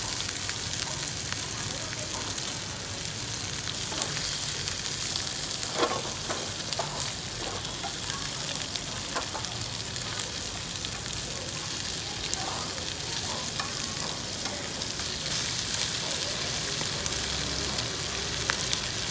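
Pieces of sturgeon sizzling in hot oil in a non-stick frying pan over charcoal, a steady hiss full of fine crackles and pops. A few sharp clicks stand out, the loudest about six seconds in.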